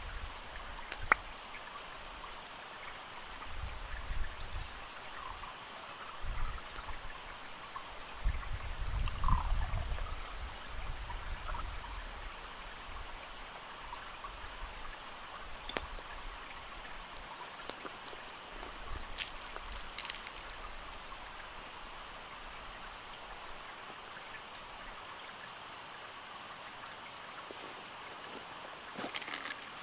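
Steady rush of a stream running over stones, with a few low thumps in the first part and occasional light clicks.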